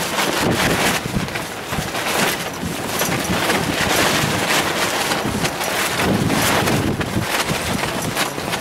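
Wind buffeting the camera microphone in gusts, a steady rushing noise that swells and eases every second or two.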